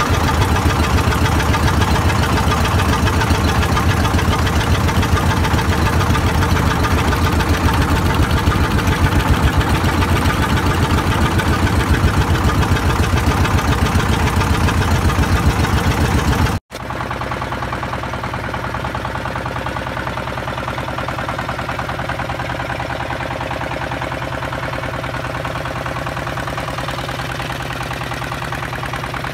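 Engine running steadily with fast, even firing pulses. About two-thirds in it breaks off for an instant, then a quieter engine carries on: a boat's engine under way.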